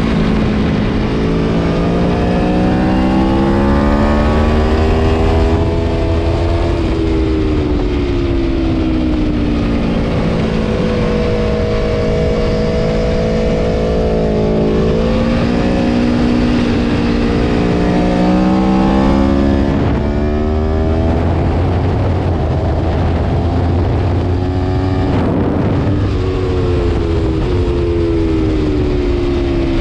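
Aprilia Tuono V4 Factory's V4 engine at racing speed, its pitch climbing under acceleration and dropping at each gear change. About two-thirds of the way through comes a quick series of falling steps, the downshifts of hard braking into a corner, before it pulls up through the revs again. Steady wind rush runs underneath.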